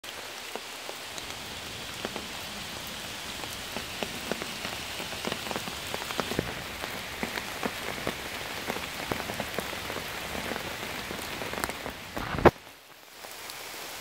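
Rain falling on forest leaf litter and foliage: a steady hiss of rain with many small pattering drop clicks. Near the end a single sharp knock stands out as the loudest sound, and the rain briefly drops away after it.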